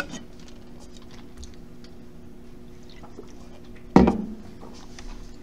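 Quiet room tone with a faint steady hum, broken by one short, sharp knock about four seconds in.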